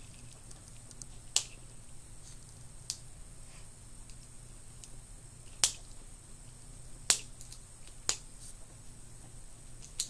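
About six sharp, separate plastic clicks, spaced unevenly, as fingernails pick and snap at a plastic surprise-egg capsule to pry it open.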